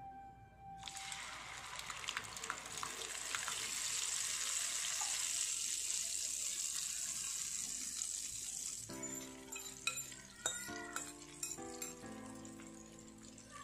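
Egg and tofu batter hitting hot oil in a frying pan: a steady sizzle starts about a second in and eases off after about eight seconds. Background music then comes in, with a spoon clicking against the pan as the batter is spread.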